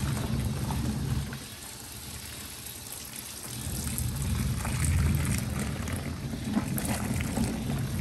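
Kuppet portable washing machine's wash motor running and churning water and towels in the tub. The low motor hum eases off about a second and a half in and picks up again a couple of seconds later, as the agitator pauses and restarts.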